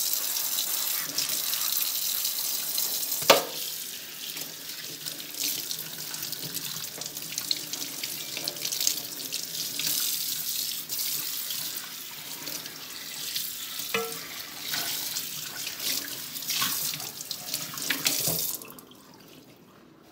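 Kitchen tap running into a stainless steel sink, the water splashing over a cast iron skillet as it is washed and rinsed under the stream. There is a sharp knock about three seconds in and another near fourteen seconds. The water stops abruptly about a second and a half before the end.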